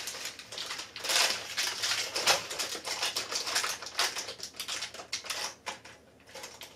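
Plastic ornament packaging crinkling and crackling as it is opened and handled, a dense run of small clicks that dies down near the end.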